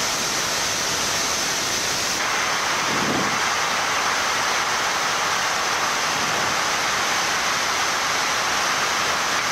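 Steady rushing background noise on a Boeing 787 flight deck in cruise, the hiss of air flowing around the cockpit. It turns slightly brighter about two seconds in.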